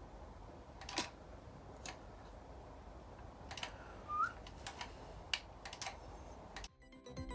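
Caulking gun being squeezed to lay beads of black sealant: a handful of faint, scattered clicks from the trigger and plunger, with a brief rising squeak about four seconds in.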